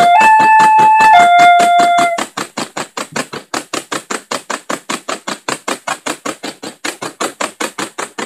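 Railroad crossing warning signal: a two-note electronic tone alternating low and high about once a second, over a rapid, even ticking of about five strikes a second. The two-note tone stops about two seconds in and the rapid ticking continues alone.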